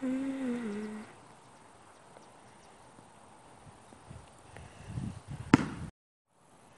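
A person's drawn-out voice falling in pitch for about a second, then a low rumble of the bicycle rolling in, ending in one sharp, loud smack of a basketball striking the hoop about five and a half seconds in.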